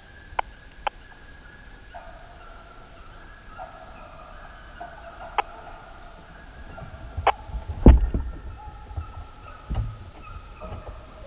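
A pack of deer hounds baying at a distance, long drawn-out howls overlapping one another, with a few sharp clicks and some low thumps about two-thirds of the way through.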